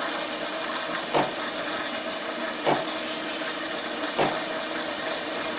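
Merol ME-712 automatic coffee machine's milk frother running: a steady pump hum and steam hiss with a short surge about every one and a half seconds, as it draws milk up the hose and froths it into the cup.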